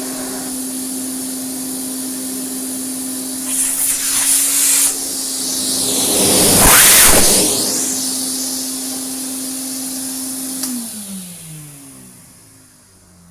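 Hoover Constellation vacuum cleaner running with a steady motor hum and rush of air, the air growing louder briefly about four seconds in and again around seven seconds. Near the end it is switched off and the motor winds down, its hum falling in pitch as it fades; the machine runs fine.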